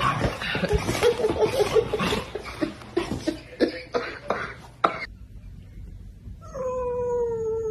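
Several sharp slaps and knocks with short voiced sounds among them, then, about six and a half seconds in, a domestic cat's single long meow held at a nearly steady pitch.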